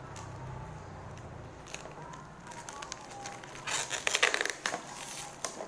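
Plastic wrapping and brown paper packaging being handled and pulled open by hand, crinkling and crackling, loudest in a burst about four seconds in.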